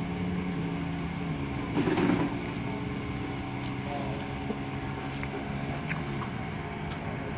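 Steady low hum of a diesel train idling at the station platform, with a brief louder rumble about two seconds in.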